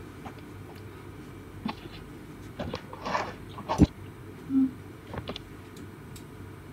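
A handful of short clicks and knocks from handling at a desk with a laptop, over a steady low hum of room noise. The loudest is a sharp knock a little under four seconds in, followed shortly by a brief low note.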